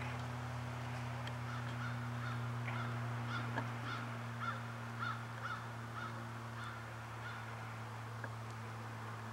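Faint bird calls, short and evenly repeated about four times a second for several seconds, over a steady low hum.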